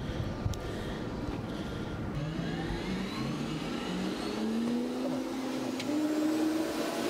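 Helicopter turboshaft engines heard from inside the Mi-8AMTSh's cockpit, spooling up: from about two seconds in, a whine climbs slowly and steadily in pitch over a steady rumble.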